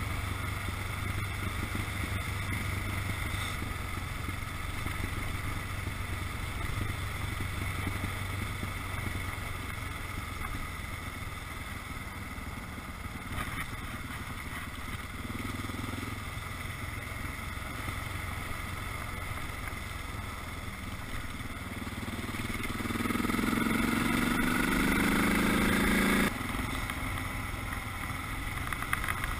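Dual-sport motorcycle engine running steadily while riding on a gravel road. A few seconds before the end it revs up, rising in pitch and getting louder, then drops off suddenly.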